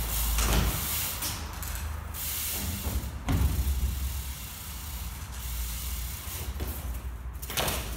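BMX bike riding on a concrete floor: tyres rolling with a steady hiss and low rumble, and a thud as the bike lands a hop about half a second in, with another thud a little after three seconds.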